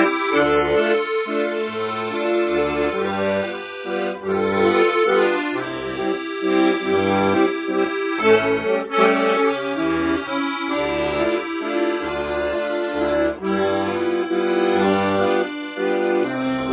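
Accordion playing a tune over its left-hand bass-and-chord accompaniment, with short detached bass notes on the beat. The bellows pressure is eased after each bass note, giving a sweeter, almost percussive bass.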